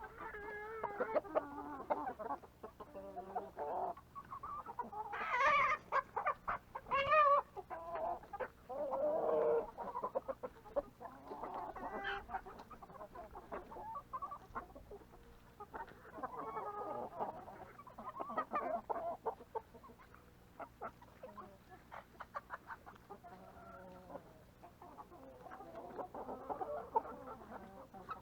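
A flock of chickens clucking and calling, several birds at once, with the loudest calls about five to eight seconds in.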